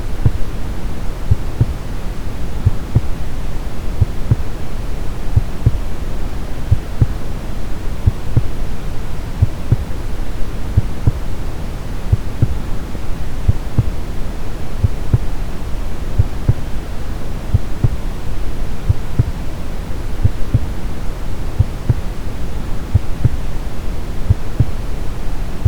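Steady brown noise, a deep even hiss weighted toward the low end, with a slow, regular heartbeat of soft low thumps running under it.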